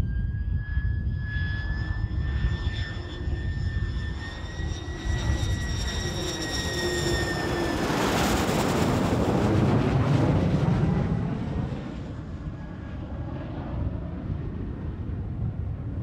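Lockheed U-2's jet engine passing low overhead on its landing approach: a high whine, rising slightly, ends about eight seconds in as a broad rush of jet noise peaks and then fades away. Gusty wind on the microphone rumbles low throughout.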